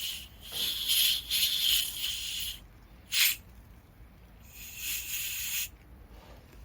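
Pressurised gas hissing out in bursts: a long burst of about two seconds, a short puff, then another burst of about a second.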